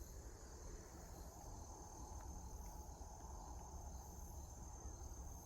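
Steady insect chorus in woodland, a continuous high-pitched drone, over a low rumble of wind or handling noise.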